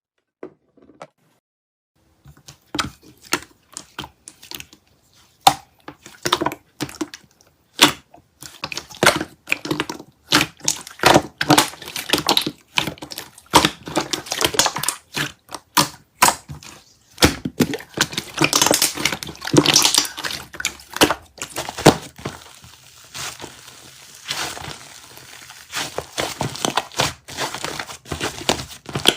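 A dense run of irregular sharp clicks and taps, starting about two seconds in and continuing, some of them quick and close together.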